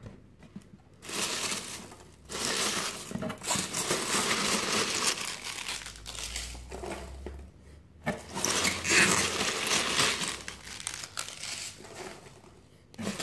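Polystyrene foam packing peanuts rustling and crinkling as a hand digs through them in a foil-lined box, in two spells with a short pause about eight seconds in.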